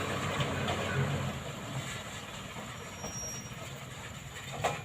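Heavy machinery rumbling and clattering, with a low engine hum that fades away after about a second, the rumble slowly dying down, and one sharp knock near the end.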